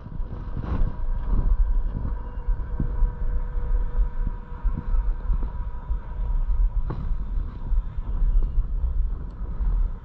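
Steady low rumble with wind buffeting the microphone, under a faint steady hum; a single knock about seven seconds in.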